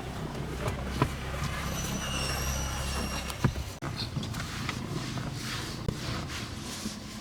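A steady low machine hum that cuts off about three and a half seconds in, with scattered clicks and knocks.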